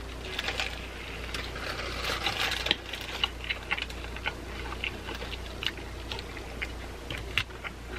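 Close-miked chewing of a mouthful of burger: many short, wet mouth clicks and smacks at an uneven pace, with a soft breath through the nose about two seconds in.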